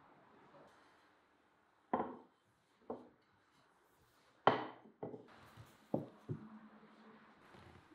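Dishes knocking on a wooden table: about six separate clunks while a glass bowl of wraps and clay plates are handled. The loudest clunk comes about four and a half seconds in.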